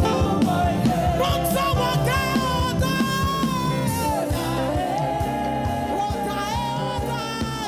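Background music: a singing voice over a steady drum beat.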